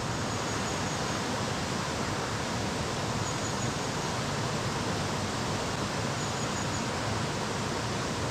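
Steady rush of flowing river water, an even unbroken noise.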